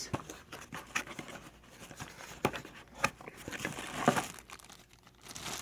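Plastic packaging crinkling and rustling as it is unwrapped and handled, with a few sharp clicks and knocks.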